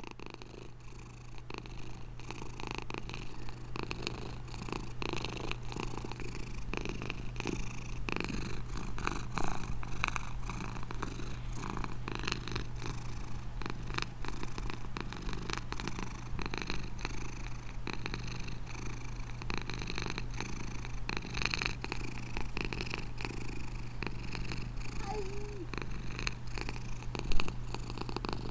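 Domestic ginger-and-white cat purring steadily while its belly is rubbed, with scratchy rustling of hands in its fur. A single sharp knock sounds near the end.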